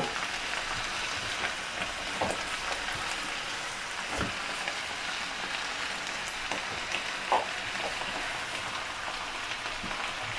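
Shredded cabbage sizzling steadily as it fries in a pan, stirred with a wooden spoon. A few light knocks come through, about two, four and seven seconds in.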